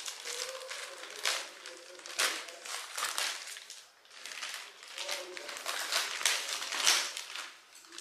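A thin plastic courier mailer bag crinkling and rustling in irregular bursts as it is cut open with scissors and pulled apart.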